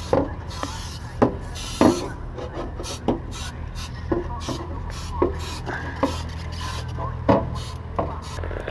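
A hand rubbing and scraping inside the aluminium wing of a Piper PA-38 Tomahawk, reached in through an inspection hole in the underside, with sharp knocks against the skin every second or so. A steady low hum sits underneath.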